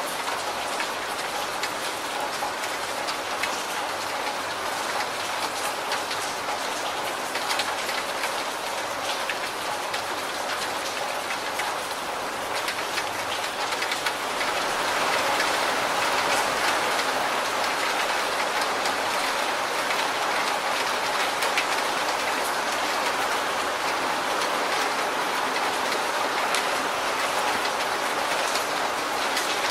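Steady rain with water pouring off the edge of a corrugated roof in streams, full of fine drop patter; it grows a little heavier about halfway through.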